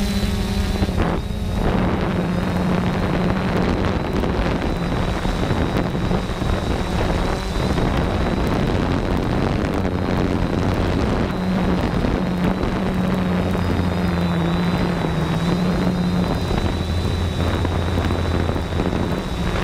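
3DR Solo quadcopter's motors and propellers running steadily in flight: a low hum with a thin high whine, mixed with wind noise on the GoPro's microphone.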